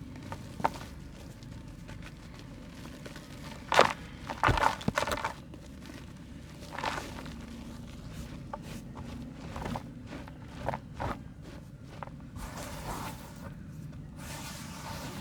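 Lumps of soft dried mud crumbling and snapping in the hands, in irregular crunches, with a loud cluster about four seconds in and lighter crumbles scattered after.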